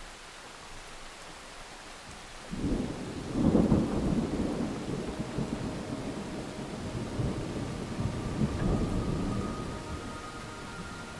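A low rolling rumble that starts suddenly about two and a half seconds in, is loudest a second later, then rolls on and slowly fades over the next several seconds.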